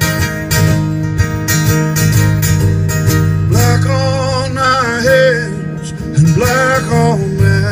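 Acoustic guitar strummed in a steady rhythm while a man sings solo, holding two long notes with vibrato in the second half.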